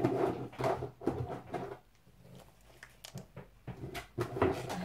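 Handling noise from packaged clear stamps being fetched and sorted: irregular light clicks and rustles in the first couple of seconds and again near the end, with quieter scattered ticks in between.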